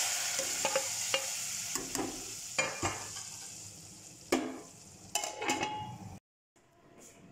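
Hot tadka poured from a steel ladle onto sarson ka saag in an aluminium pot, sizzling loudly and dying away over a few seconds, with small clinks of the ladle against the pot. Near the end a metal lid clatters onto the pot, ringing briefly.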